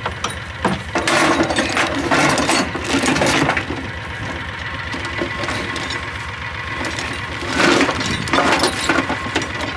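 Metal clanking and rattling from a steel spike harrow being handled, in two spells, about a second in and again near the end, over a steady idling engine.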